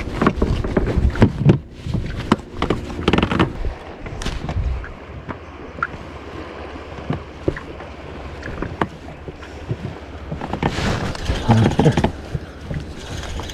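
Knocks and rubbing from gear being handled aboard an inflatable boat, over a steady rush of wind and water, loudest in the first few seconds; afterwards quieter, with scattered light clicks.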